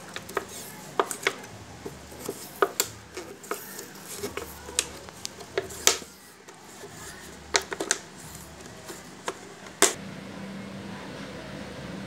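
Irregular sharp crackles and clicks from a thin plastic water bottle and a roll of tape being handled as tape is wound around the bottle's neck where it fits onto a blower fan's outlet. Near the end the crackling stops and a low steady hum remains.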